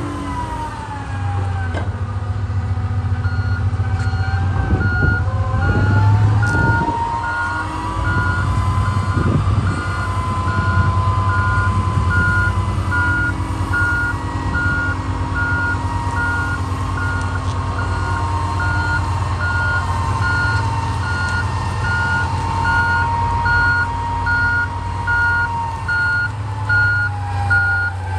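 Komatsu HD405-7 rigid dump truck's diesel engine running with a drivetrain whine that rises, holds, and falls away near the end. From about three seconds in its reversing alarm beeps steadily, a sign the truck is backing up.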